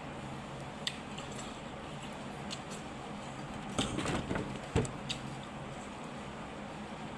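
Close-up eating sounds: scattered small clicks and mouth smacks of chewing, with a cluster of them about four seconds in and a single low thump just after, over a steady low hum.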